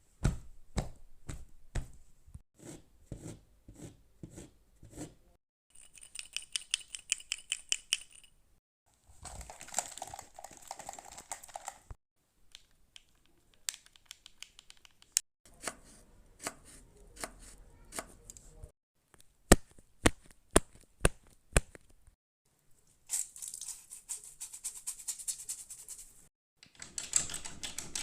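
A series of short, varied sound effects cut one after another: single clicks and knocks about every half second, fast runs of ticking, and hissy stretches of dense clatter, each lasting a few seconds with brief gaps between.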